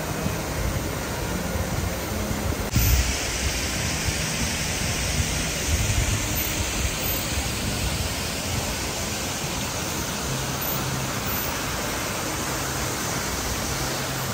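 A steady rushing noise that turns brighter and hissier about three seconds in.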